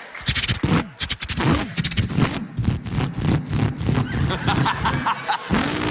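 A man imitating a V8 Holden Torana with his voice: quick popping crackles and a pitched engine note that rises and falls, like revving through the gears, with a rising rev near the end.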